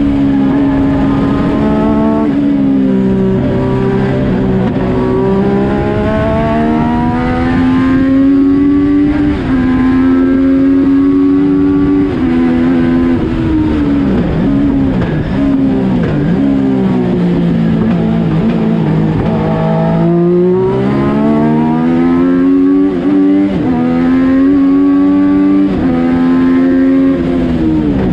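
Yamaha FZ09 847 cc inline-three motorcycle engine in a race car, heard from the cockpit while lapping at speed. The pitch climbs under throttle, drops at each gear change and lift, then climbs again.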